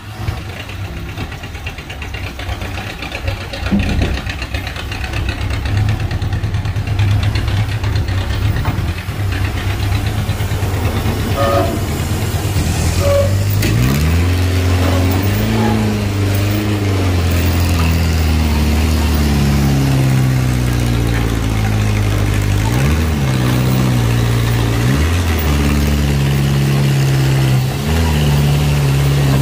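Heavy diesel engine of an Isuzu Giga truck tractor running under load, steady at first and then revving up and down repeatedly from about halfway in as the truck pulls its container trailer on a steep climb. A short toot sounds just before the revving starts.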